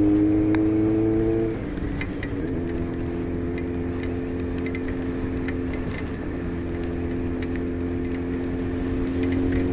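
Honda CBX 750's air-cooled inline-four engine running under the rider, its note rising slightly, then dropping in pitch and level about a second and a half in and holding steady at a lower pitch.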